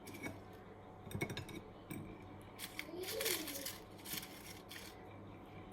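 Glassware and kitchen utensils being handled: a few sharp knocks and light clinks, with a short scratchy noise about three seconds in.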